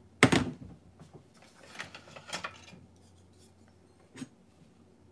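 Kitchenware being handled as the hot pot is about to be served: a sharp knock about a quarter second in, then lighter scraping and clinks, and a single click a little after four seconds in.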